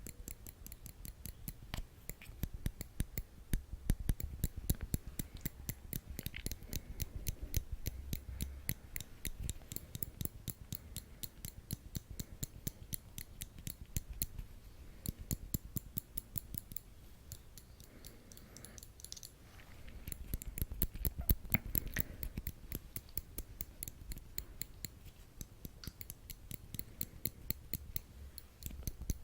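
Metal tweezers clicking close to the microphone: a steady run of crisp snaps, several a second, as the tips pinch shut over and over.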